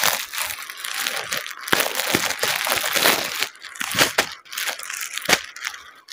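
Crinkling and rustling of a clear plastic saree packet being handled and opened to take the saree out. The crackling is dense for the first few seconds and sparser near the end.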